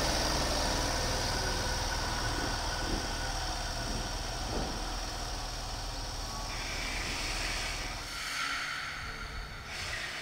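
JR Central 313 series electric train at a station, a steady low hum and rumble that drops away about eight seconds in, with a higher whine coming up near the end.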